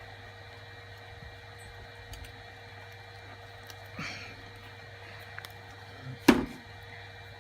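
Steady electrical hum under small handling clicks and rustles on a workbench, with one sharp knock about six seconds in.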